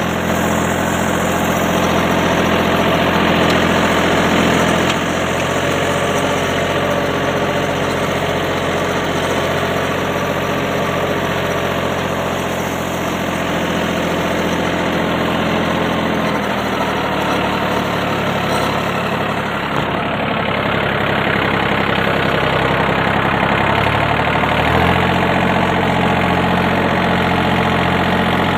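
John Deere 3036EN 36 hp mini tractor's diesel engine running steadily. About sixteen seconds in, the engine note drops to a lower speed, and it picks back up near the end.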